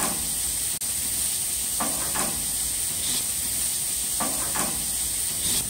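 Marinated chicken quarters sizzling, meat side down, on the hot grates of a gas grill: a steady hiss.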